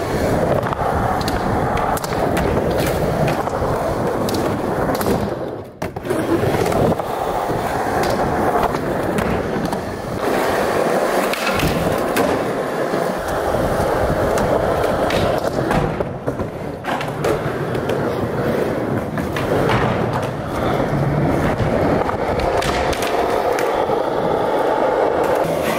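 Skateboard wheels rolling steadily on a smooth hard floor, broken by many sharp clacks of the board popping, landing and slapping down.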